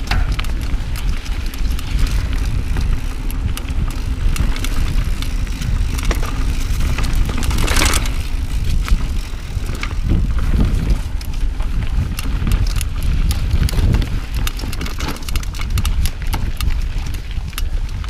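Giant Trance full-suspension mountain bike riding down a dirt singletrack: tyres rolling over the trail with a steady low rumble, and frequent clicks and rattles from the bike over bumps. A brief louder hiss about eight seconds in.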